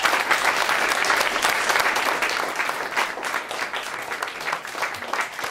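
A small group of people clapping, thinning out and fading toward the end.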